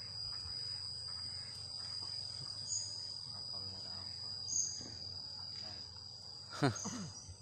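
Insects trilling in a steady, high-pitched drone, with a few short high chirps over it. Near the end comes one louder, sudden sound that falls in pitch.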